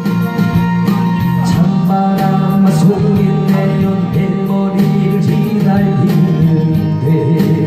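Amplified Korean 7080-style ballad with guitar accompaniment, a man singing over it into a handheld microphone.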